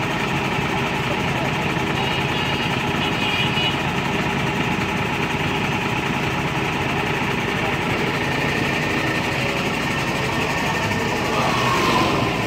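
Heavy tow truck's diesel engine idling steadily.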